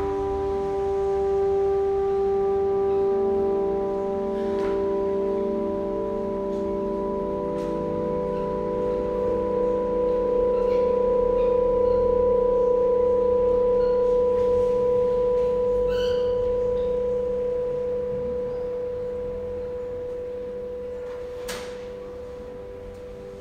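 Slow ambient drone of sustained ringing tones at a few steady pitches, like a singing bowl. It swells through the middle and fades gradually toward the end. A few faint knocks sound, with one sharper knock near the end.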